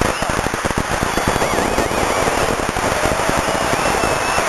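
A crowd applauding: many hands clapping densely and unevenly, with high wavering cheers over it about a second and a half in and again near the end.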